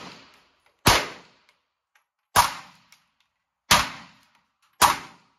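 9mm pistol fired four times, about one to one and a half seconds apart, each shot sharp with a short ringing tail; the tail of a shot fired just before is still dying away at the start. The shots make up a timed drill, the pistol switching between targets.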